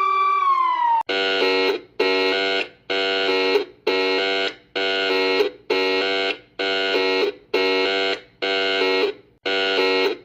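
Electronic warning siren: a wailing tone that rises, falls and cuts off about a second in, then a harsh multi-tone alarm pulsing about once a second, each pulse held steady and then fading.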